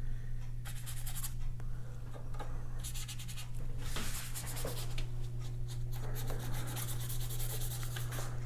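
A paintbrush loaded with acrylic gouache scrubbing across sketchbook paper in a series of broad strokes, the longest run in the second half, over a steady low hum.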